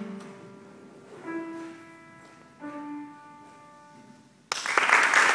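Upright piano playing the closing notes of a piece: a few slow notes or chords, each left to ring and fade. About four and a half seconds in, applause breaks out suddenly, louder than the piano.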